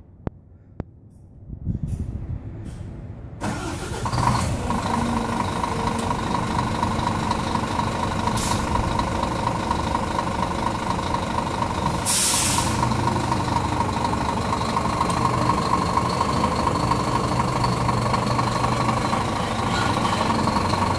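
Scania R440 truck's inline-six diesel engine cranking and catching about three seconds in, then idling steadily. Two hisses of air from the air brake system come about eight and twelve seconds in, the second one longer.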